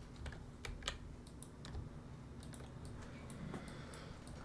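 Faint, irregular clicks of a computer keyboard and mouse, about ten scattered unevenly, over a faint steady low hum.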